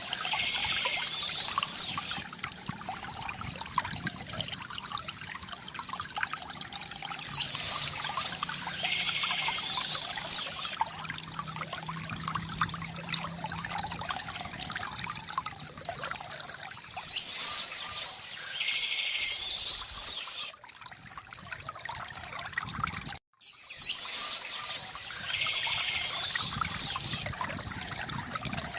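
Stream water trickling and splashing steadily, with a songbird singing a short, repeated phrase about every eight to ten seconds. The sound cuts out for a moment about three-quarters of the way through.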